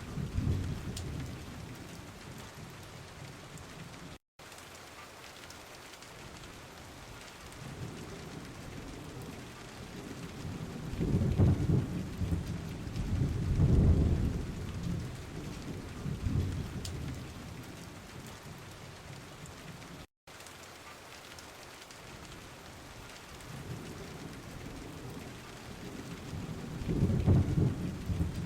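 Steady rain with rolling thunder: deep rumbles swell up about halfway through and again near the end. The sound cuts out for an instant twice.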